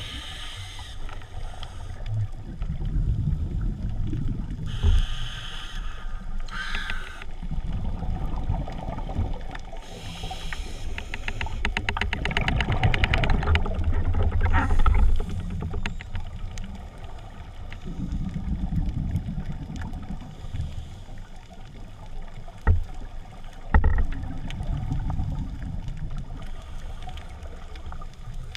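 Muffled underwater rumble of water moving against a waterproof camera housing as a diver swims along the bottom, with a few knocks, some short hissing bursts in the first half and a few seconds of rapid fine clicking midway.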